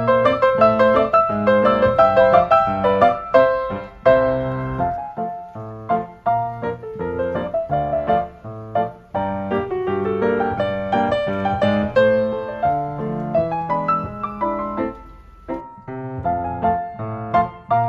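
Background piano music: a melody of quick struck notes over a lower accompaniment.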